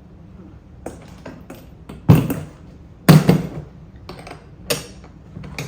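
Metal hand tools and bolt hardware clinking and knocking during cart assembly, with two loud clanks about two and three seconds in and lighter clicks in between.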